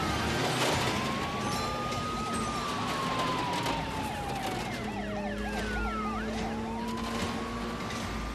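Police car sirens sounding together: a slow rising-and-falling wail overlapped by a faster yelp, over a car engine's rumble.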